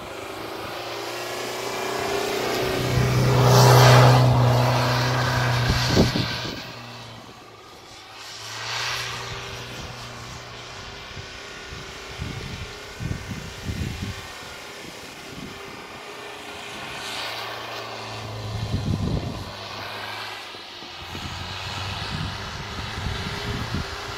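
Mitsubishi Pajero engine running under load off-road, growing louder to a peak about four seconds in and then easing back, with scattered knocks and thumps later on.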